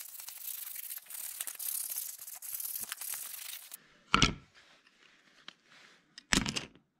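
Scratchy, irregular rubbing on the edge of a wooden racket blade by hand, as in hand-sanding it smooth. It stops a little under four seconds in, followed by two short heavy knocks about two seconds apart.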